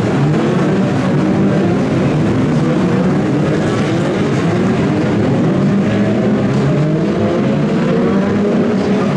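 A pack of BriSCA F2 stock cars racing round a shale oval: several engines at once, their overlapping notes rising and falling as the drivers work the throttles through the laps.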